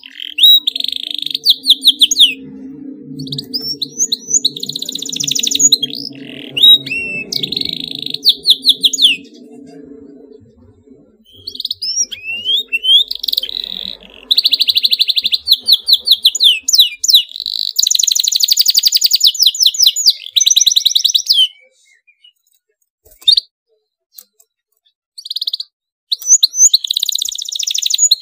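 Domestic canary singing hard in long bursts of whistled glides and fast, tight rolling trills, broken by a short pause with only a few single notes near the end.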